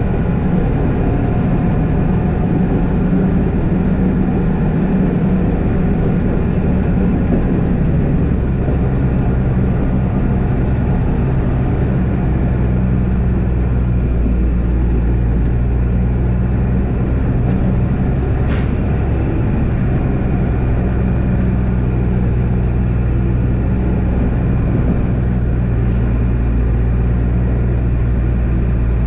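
Unimog U1400's diesel engine running steadily under load while its front snowplow pushes snow, with a rushing noise over the engine's low drone. A single sharp click about two-thirds of the way through.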